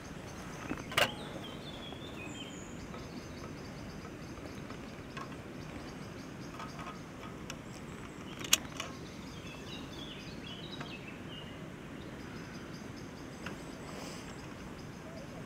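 Open-field outdoor ambience: a steady low background hiss with small birds chirping in short spells. Two sharp clicks stand out, one about a second in and one about eight and a half seconds in.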